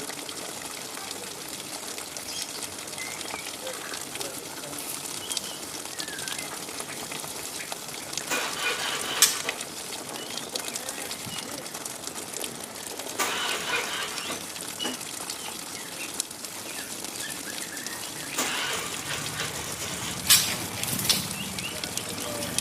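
Juvenile white-rumped shama giving a soft, scattered 'ngriwik' chatter of short chirps over a steady background hiss, broken by several brief rustling bursts.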